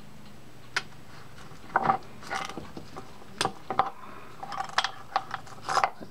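Small metal parts of a Penn Senator reel's gear sleeve and drag stack clicking and clinking as they are slid apart and set down one by one: a run of irregular sharp clicks starting about a second in, some single, some in quick little clusters.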